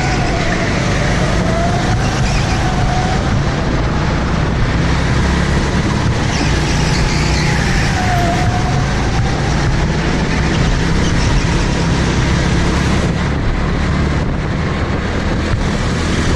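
Go-kart engine running hard, heard from on board the kart while it laps at speed. A wavering squeal, most likely the tyres, rises and falls twice: near the start and about eight seconds in, as the kart corners.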